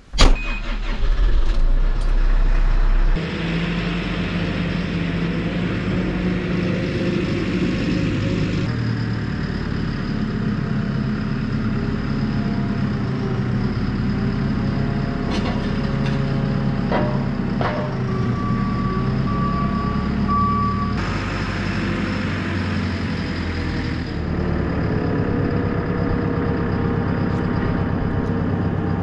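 JCB Super Agri 532-70 telehandler's diesel engine starting up and then running steadily. Its reversing alarm beeps several times about two-thirds of the way through.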